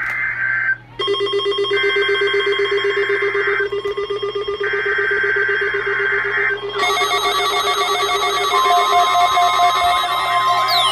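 NOAA Weather Radio test signal: warbling digital data bursts of the EAS SAME header, three in a row about a second apart, over a steady low electronic tone. About two-thirds of the way in, a dense mix of steady electronic tones takes over, with falling pitch sweeps near the end.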